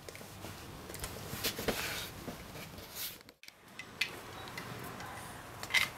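Scattered light clicks and handling noise from a plastic action figure and a small plastic toy being turned over in a child's hands. The sound cuts out completely for a moment a little past halfway.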